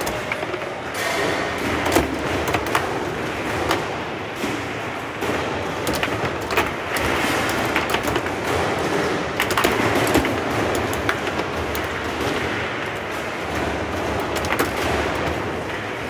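Foosball table in play: irregular sharp clacks and knocks of the ball striking the plastic players and table walls and of the rods being jolted, over a steady background hall noise.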